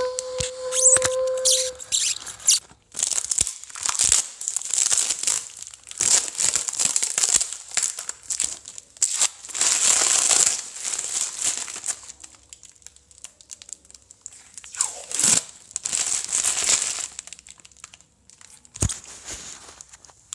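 Strips of shiny black tape torn and peeled away, with the plastic crinkling and rustling as it is pulled and crumpled, in irregular rasping pulls with short pauses between.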